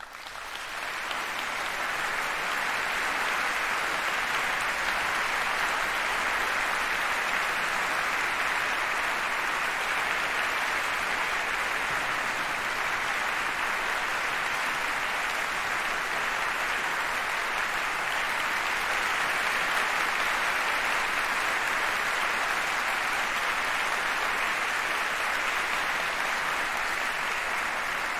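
Concert audience applauding in a hall; the clapping swells up from silence over the first couple of seconds and then holds steady.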